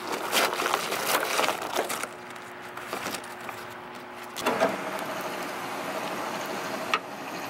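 Packed ice and snow being broken and pulled off a car's windshield wipers and cowl by a gloved hand: crunching and cracking in irregular strokes, busiest in the first two seconds, then quieter. A single sharp knock near the end.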